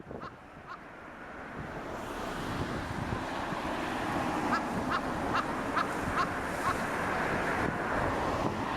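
Strong wind rushing, building up over the first few seconds and then holding steady. Near the middle comes a run of about six short, evenly spaced high blips, roughly two a second.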